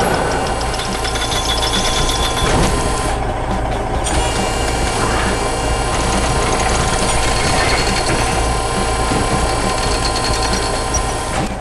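Heavy construction machine's diesel engine running steadily, a continuous low rumble with some mechanical ticking over it.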